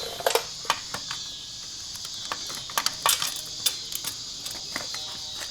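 Metal parts and tools clicking and clinking as they are handled, a string of sharp knocks spread through the few seconds, over a steady high chirring of crickets.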